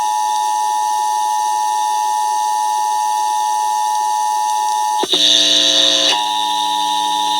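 Emergency Alert System attention signal: the steady two-tone alarm (853 and 960 Hz together) sounding continuously. About five seconds in, a louder, harsher tone cuts in for about a second, and a lower tone then keeps sounding underneath the alarm.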